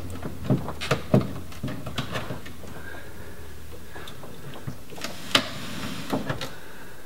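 Scattered hard plastic clicks and knocks as a BMW X5 E70 tailgate tail light assembly is worked free of the tailgate by hand, the sharpest knock about five seconds in.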